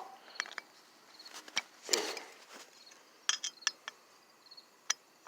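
Scattered light clicks and taps of a screwdriver working the small screws out of the back of a scooter variator, with a small cluster of clicks about three and a half seconds in.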